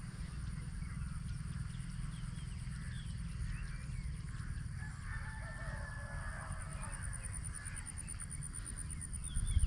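Faint bird calls and chirps over a steady low rumble, with a thin steady high-pitched tone running underneath.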